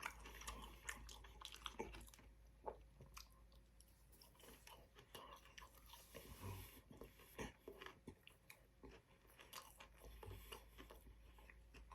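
Faint close-up chewing and biting, with many irregular small crunches and wet mouth clicks, as a man eats fast food.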